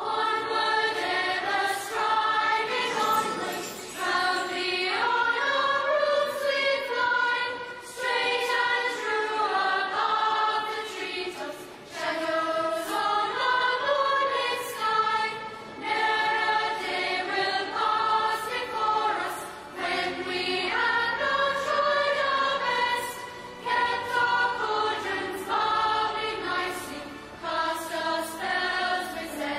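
Opening theme song of a children's TV series: voices singing a melody over instrumental backing.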